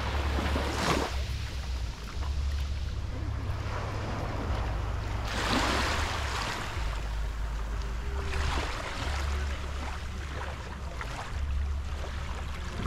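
Small waves washing up a beach, the hiss swelling several times as each wave comes in, over a steady low rumble of wind on the microphone.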